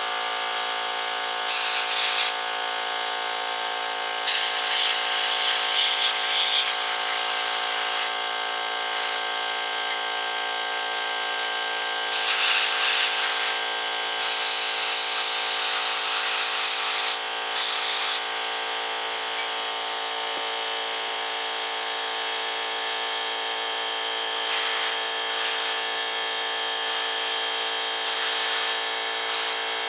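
Central Pneumatic 21-gallon, 2-1/2 HP cast-iron air compressor running steadily, with bursts of hissing blast from a sandblaster gun every few seconds, some short and some lasting two to three seconds.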